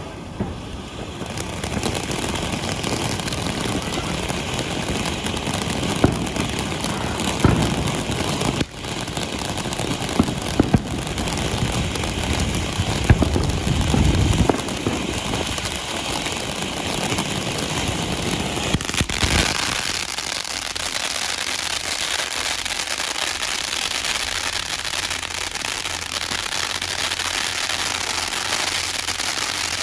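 Fire and Ice safe-and-sane fountain firework spraying with a continuous hiss, with a few sharp pops in the first half. A little past halfway the low rumble drops out and the spray goes on as a higher, thinner hiss.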